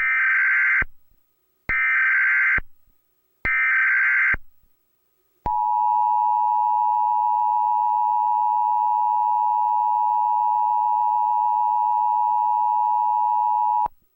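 Emergency Alert System header: three short bursts of screeching data, then the steady two-tone attention signal for about eight seconds, cutting off abruptly. Together they mark the start of an emergency alert broadcast.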